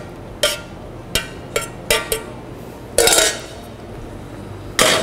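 Glass preserving jar and kitchen utensils clinking and knocking as the jar of eggs is filled with brine: a quick run of sharp clinks, a longer rattling burst about three seconds in, and one more knock near the end.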